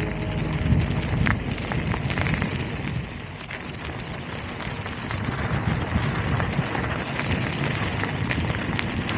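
Wind buffeting the microphone while crunching along a gravel track: a rough, uneven rumble with scattered sharp clicks of grit and stones.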